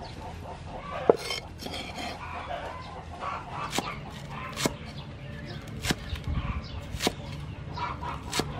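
Heavy cleaver chopping green onion and herbs on a wooden chopping board, making six sharp knocks spaced about a second apart. Chickens cluck in the background.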